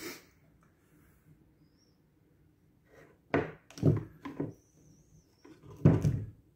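A metal bench scraper is pushed down through a bar of homemade soap in a wooden soap-cutting jig. About halfway through there are three short knocks and scrapes, and near the end the loudest thunk comes as the blade cuts through against the wood.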